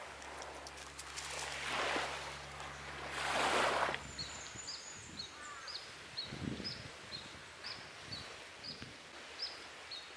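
Small waves washing onto a sandy, pebbly shore, swelling twice, the second louder. After about four seconds the surf gives way to a bird calling, short high chirps repeated about twice a second.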